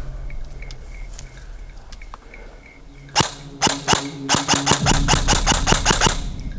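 Airsoft gun firing: a couple of single shots about three seconds in, then a rapid string of about eight to ten shots a second for around two seconds.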